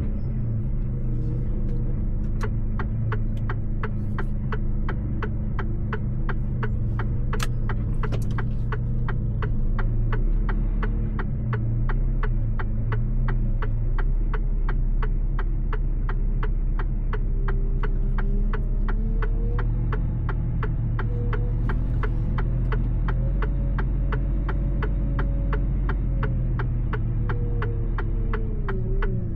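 Mercedes-Benz truck engine running with a steady low drone, heard from inside the cab while driving, with an even ticking of about two clicks a second over it.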